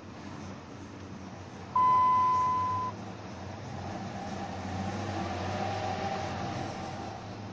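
Cab sound of a 2003 Dodge Ram 1500's 5.9-litre V8 engine and drivetrain as the truck gathers speed, the rumble growing louder from about three seconds in. About two seconds in, a single loud electronic beep from the dash sounds steadily for about a second.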